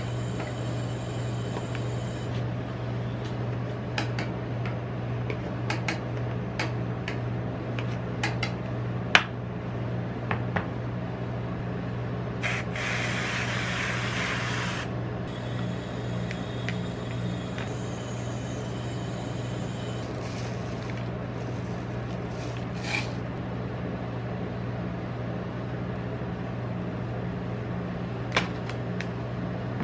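Aerosol whipped cream can spraying for about two and a half seconds, over a steady low machine hum. Scattered light clicks and taps of utensils on the steel ice pan and paper cup.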